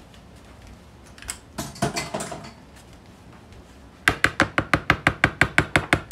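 A metal spoon stirring a stiff breadcrumb-and-mayonnaise mix in a plastic bowl, knocking against the bowl about seven times a second from about four seconds in. Some lighter clattering comes a couple of seconds earlier.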